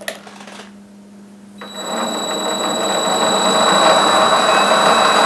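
A click of the start switch, then about one and a half seconds in the TS-210 variable-speed mini lathe starts up. Its spindle and headstock gears speed up as the speed knob is turned, then run steadily with a high-pitched whine and a slightly rough sound.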